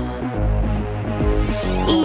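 Electronic background music: synthesizer chords that change every fraction of a second over a steady bass.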